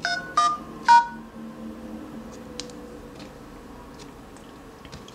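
Goophone i6's dialer keypad sounding three short two-tone touch-tone beeps in quick succession, about half a second apart, as a star-hash service code is keyed in to change the boot logo. A few faint taps follow.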